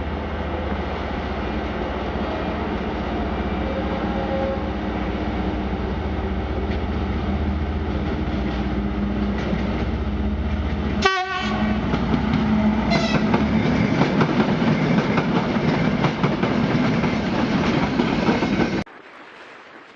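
Train running on railway track: a steady rumble and clatter of wheels on rails, with a train horn sounding. The sound changes abruptly about eleven seconds in and cuts off suddenly near the end.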